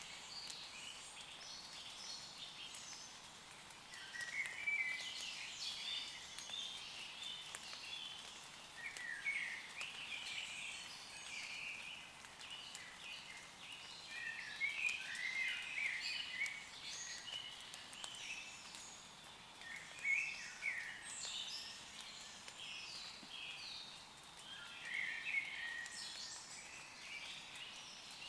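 Woodland birds singing in short, chirping phrases that come every few seconds, over a faint steady hiss of light rain falling on leaves.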